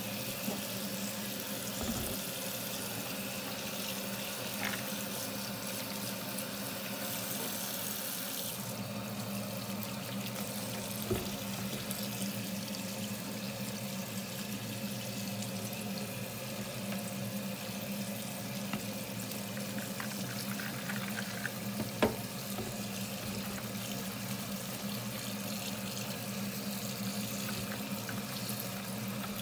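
Kitchen tap water running steadily onto pinto beans in a plastic colander in a stainless-steel sink, with the beans being stirred by hand. A few short knocks, the sharpest one about two-thirds of the way through.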